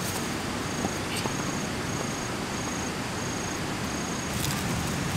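An insect repeats a high, even chirp about every two-thirds of a second over a steady outdoor rushing background. A few light knocks of wood and stone are heard as firewood and stones are set at a fire pit.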